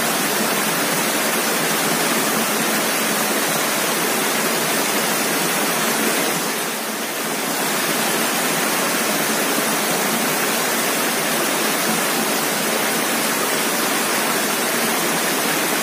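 Small stream spilling over a low rocky cascade: a steady rushing of water, easing slightly about halfway through.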